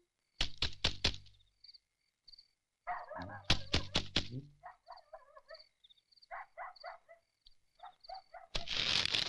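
Night ambience: insects chirping in short, evenly repeated high pulses throughout. A quick run of four sharp knocks comes about half a second in, with more knocks among louder scattered sounds around three to four seconds in, and a brief rushing noise near the end.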